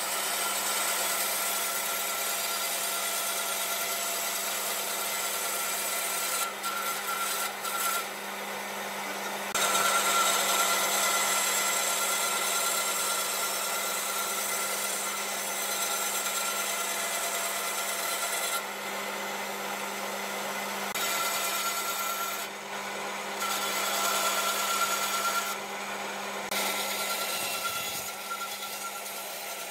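Bandsaw running with a steady motor hum while its blade rips lengthwise through pine boards; the cutting noise swells and eases as the wood is fed, with a few brief lulls between cuts.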